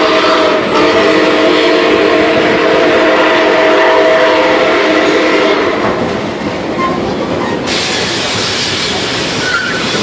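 Nickel Plate Road No. 765 steam locomotive's whistle sounding a long chime blast of several steady notes together, which ends about halfway through. Under and after it, the loud steady noise of the passenger train rolling along the rails.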